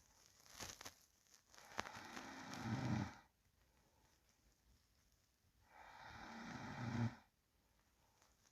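A sleeping person breathing slowly with a low snore. Two long breaths each swell and end in a low buzzing snore, with quiet pauses between them.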